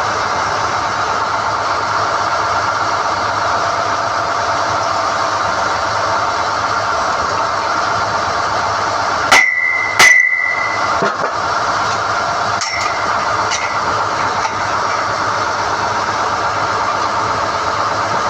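SDH-1600 core drilling rig running steadily while NQ drill rods are hoisted out of the hole. About nine and ten seconds in come two sharp steel-on-steel clanks that ring briefly, followed by a couple of lighter clinks.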